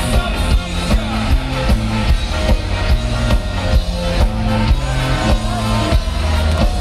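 Live ska band playing with a steady beat and a stepping bass line, saxophone, organ, electric guitar and drums over a festival PA, recorded from within the crowd.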